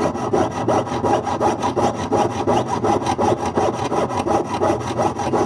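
A jeweler's saw cutting through a ring's metal band in rapid, even back-and-forth strokes, several a second.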